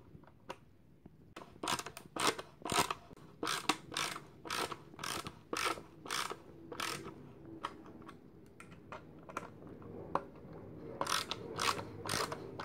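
A screwdriver driving a screw into a white laminated particleboard vanity panel, giving a series of sharp ratchet-like clicks about one or two a second, with short pauses.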